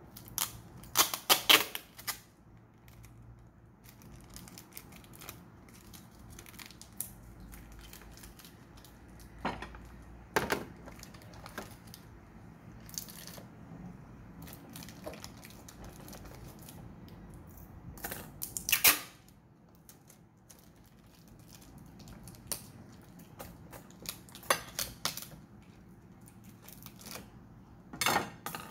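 Brown packing tape pulled off its roll in loud ripping bursts, about four times, as it is wrapped around the cap of a plastic bottle, with small handling clicks and rustles in between. The loudest rips come about a second in and around nineteen seconds in.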